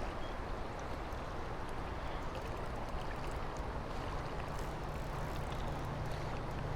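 River water rushing steadily past a boat, with faint small ticks, and a low steady hum that strengthens about halfway through.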